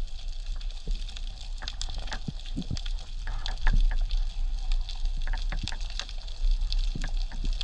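Underwater ambience picked up by a camera housing: a steady low rush of water with scattered sharp clicks and crackles throughout.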